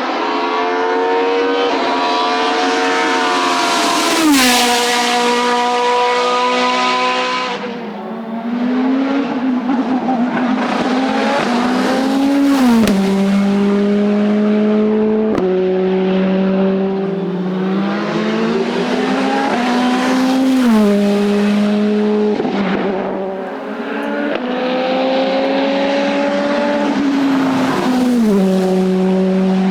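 Race car engine at full throttle on a hillclimb, its note climbing and then dropping sharply at each quick upshift, over and over through several gears.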